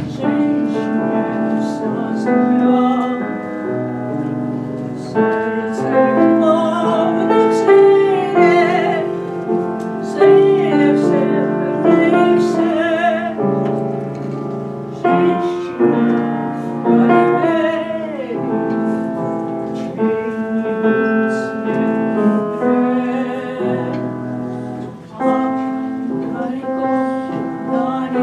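A woman singing a slow song with vibrato while accompanying herself on the piano.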